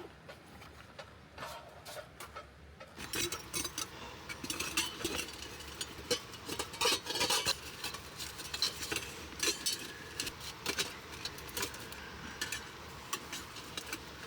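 Irregular light clinks and knocks of small hard items being handled, like utensils against dishes or a pan, starting about three seconds in and going on in quick uneven runs until near the end.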